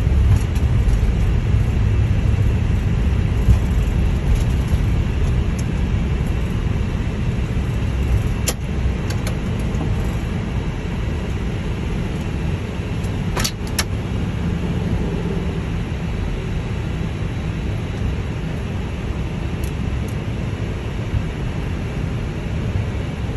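Airbus A320 cockpit during the landing rollout: a steady low rumble of the airliner rolling down the runway that slowly fades as it decelerates. A few sharp clicks stand out, one about eight seconds in and a quick pair a little past halfway.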